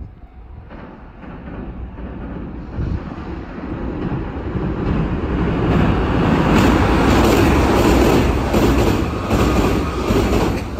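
Kintetsu Minami-Osaka Line electric train approaching and passing. Its rumble builds over the first six seconds, then comes a run of wheel clacks as the cars go by.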